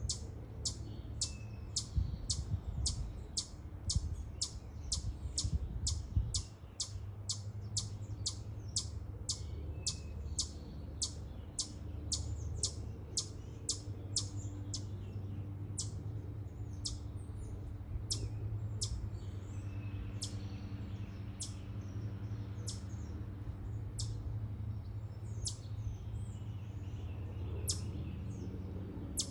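A chipmunk giving its repeated sharp, high chip call, the chipmunk's alarm call. It keeps up about two chips a second for the first half, then slows to about one a second and becomes irregular. A low rumble runs underneath.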